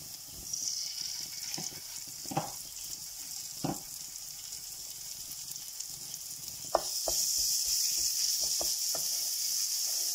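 Onions and mango pickle sizzling in hot oil in a non-stick frying pan, with a wooden spatula knocking and scraping on the pan. The sizzle grows louder about two-thirds of the way in, where the spatula strokes come quicker.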